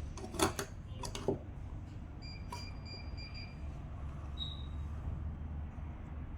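A few short, sharp clicks and knocks from small parts and tools being handled, about half a second and a second in, over a steady low hum. A faint high thin whine sounds briefly in the middle.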